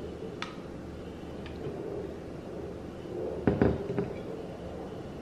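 Oster blender jar set back down onto its motor base: a few light knocks, then a cluster of clunks about three and a half seconds in, the loudest sound here.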